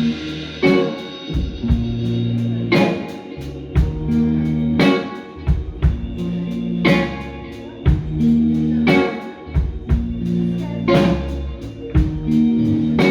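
Live band playing a slow blues-soul instrumental intro: electric guitar over sustained bass notes and drum kit, with heavy accented hits every second or two.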